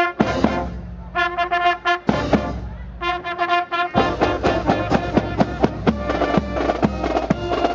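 Marching band of trumpets, bell-front marching brass and saxophones playing a fanfare of long held chords in short phrases. About four seconds in, drums come in on a quick steady beat and the full band plays on.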